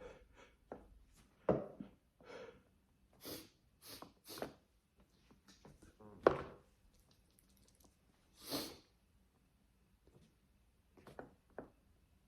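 A person sneezing wet sneezes: two sharp sneezes, about one and a half and six seconds in, the second the loudest, with short breathy hisses between and after them.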